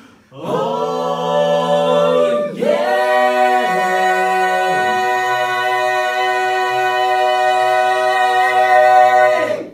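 Male barbershop quartet singing a cappella in four-part harmony: a short chord, then the medley's long final chord held for several seconds while the lower voices step down twice, all four cutting off together at the end.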